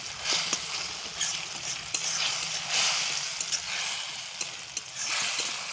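Thick tomato-and-jaggery chutney sizzling in a kadai while a metal spatula stirs and scrapes it, with many small clicks of the spatula against the pan. The mixture has cooked down almost dry and sticky.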